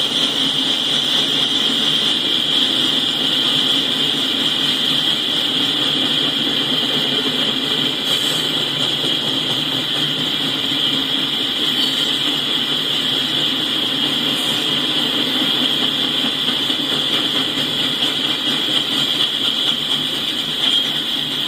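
Steady rushing rumble of a loaded coal train rolling past, picked up by a live trackside camera's microphone.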